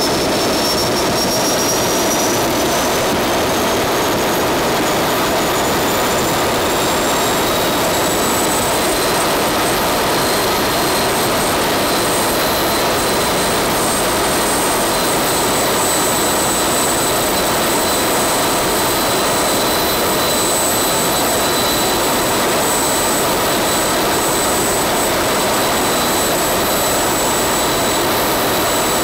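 Small RC model turbojet engine running on diesel fuel: a loud steady roar with a high whine that rises in pitch over about the first ten seconds as the turbine spools up, then holds steady.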